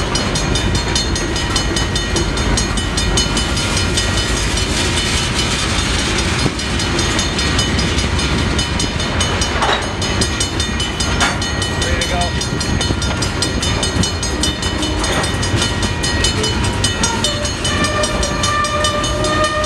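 Freight train of covered cement hoppers rolling past at a grade crossing, a steady rumble of steel wheels on rail. A crossing bell dings rapidly over it, and a higher tone comes in near the end.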